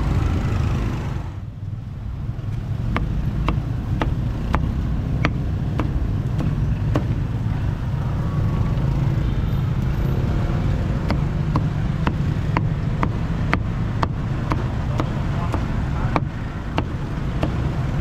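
Steady low rumble of street traffic, with a series of sharp knocks about twice a second starting about three seconds in.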